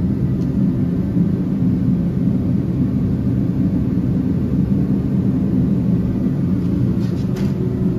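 A steady low machine drone, a hum of several pitches that does not change, with a few faint clicks near the end.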